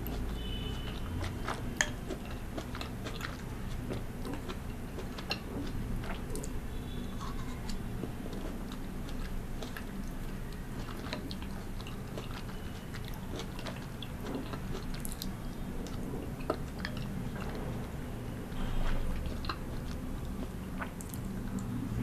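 Close-up chewing and biting of soft fruit, mango chunks and berries, spooned from a glass bowl of fruit in liquid, with many small sharp clicks scattered through, the sharpest about two seconds in.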